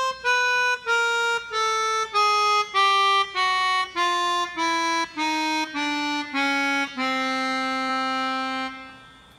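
Keyboard melodica playing a descending chromatic scale, one half step at a time, about two notes a second. It falls a full octave in thirteen notes, and the last, lowest note is held for nearly two seconds before fading.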